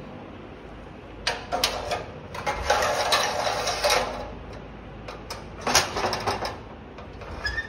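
A metal air damper being handled: its louvre blades and mesh-covered frame rattle, click and scrape in two spells, a longer one starting about a second in and a shorter one near three quarters of the way through.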